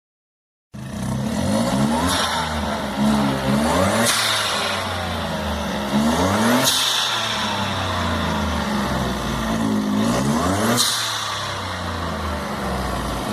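VW Up TSI's turbocharged three-cylinder engine revved up and released four times, a blow-off valve giving a sharp hissing pssh each time the throttle closes and the revs fall. The sound starts abruptly about a second in.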